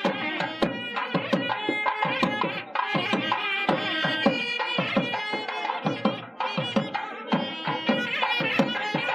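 South Indian temple music: rapid hand-drum strokes under a loud, held melody line.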